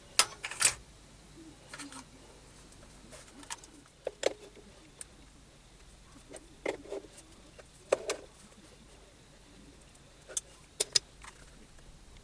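Scattered sharp metallic clicks and knocks of shop tooling being handled and set up, a magnetic stand and dial indicator being positioned, with the loudest clacks near the start and about 4, 8 and 11 seconds in.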